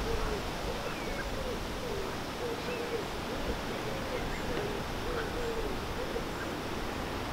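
A pigeon cooing over and over in low, wavering phrases, with a few faint chirps from smaller birds and a low rumble of wind on the microphone.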